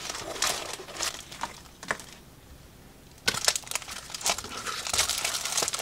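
Packaging being handled while unpacking stationery from a cardboard box: scattered rustling and handling noises, a short quiet pause, then denser crinkling of plastic wrap from about three seconds in.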